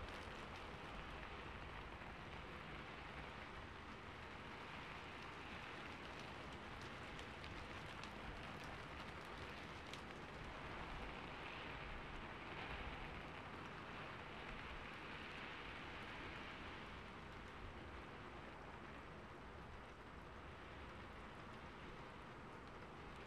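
Faint, steady rain-like hiss, with a few soft clicks now and then.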